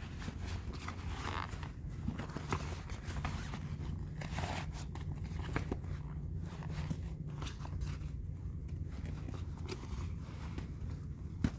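Rustling, scraping and scattered small clicks of boot-foot chest waders being pulled up over the legs, over a steady low rumble.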